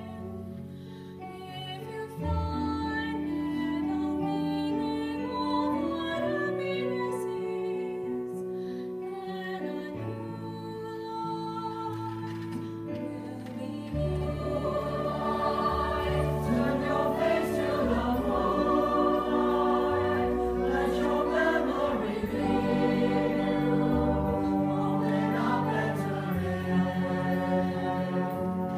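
A pit orchestra playing sustained chords while a chorus sings, quieter at first and growing louder and fuller from about halfway.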